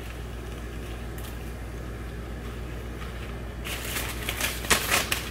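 Small plastic zipper bag crinkling and rustling as it is handled, with a few sharp crackles near the end, over a steady low hum.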